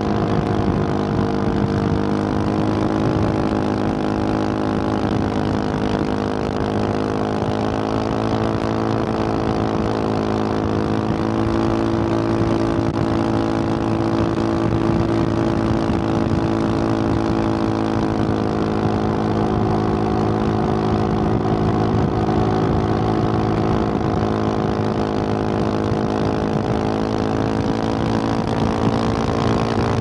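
2021 Husqvarna 701 Supermoto's single-cylinder engine with a Wings aftermarket exhaust, cruising under steady throttle, its note holding nearly level with only slight rises and falls. A steady rush of wind and road noise runs underneath.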